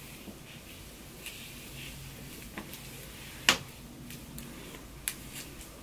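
Faint rustling of hands working through long wavy hair, with a few light sharp clicks, the loudest about three and a half seconds in.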